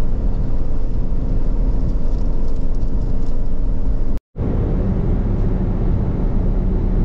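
Steady road and engine noise inside a moving car's cabin, cruising on a motorway. The sound cuts out completely for a moment about four seconds in.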